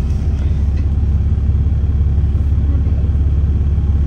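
Inside an Alexander Dennis Enviro400 double-decker bus on the move: a steady low engine and road rumble that does not rise or fall.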